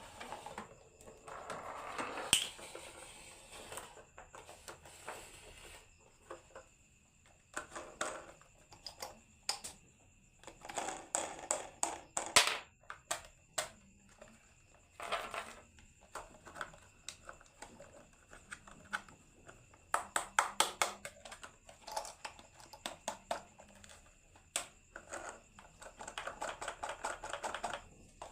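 Marbles rolling down a HABA wooden marble run: stretches of rattling as they roll, with many sharp clicks and knocks as they drop and strike the track.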